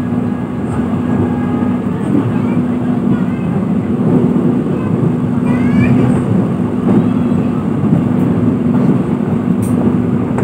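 Steady running noise inside a moving passenger train coach, with a steady low hum under it and no sharp knocks.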